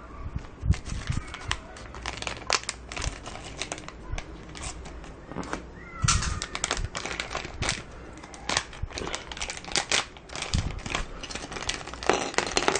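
A plastic LEGO minifigure blind bag being cut open and unpacked: the packet crinkles, with many irregular sharp clicks that get busier about six seconds in.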